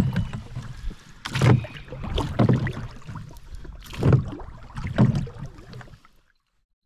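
Kayak paddle strokes dipping and splashing in the water, about once a second, until the sound cuts off about six seconds in.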